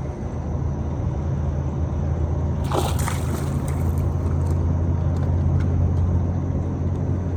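A brief splash of water about three seconds in, from a hooked largemouth bass thrashing at the boat as it is landed, over a steady low rumble.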